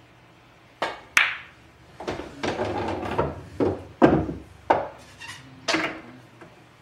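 Pool balls being shot on a billiard table: about eight sharp clacks of cue and balls striking and hitting the rails over five seconds, with a rolling rumble of balls around the middle.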